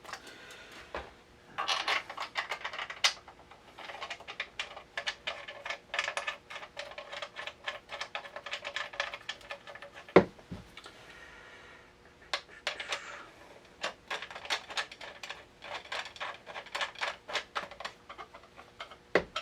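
Dense runs of quick clicking and scraping from hand work on the shotgun as its buttstock is refitted, broken by a sharp knock about ten seconds in and another at the end.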